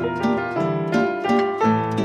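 Instrumental background music: a quick, steady run of short plucked notes over sustained lower notes.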